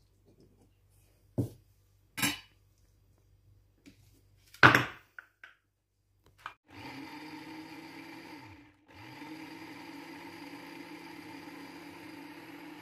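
A few clanks of a metal spoon against a steel bowl as cooked banana peel and rice are scooped into a blender jar, the loudest about five seconds in. Then a Nikai electric blender's motor starts and runs steadily, puréeing the mixture; about two seconds after starting it cuts out briefly, winding down, then speeds back up and runs on.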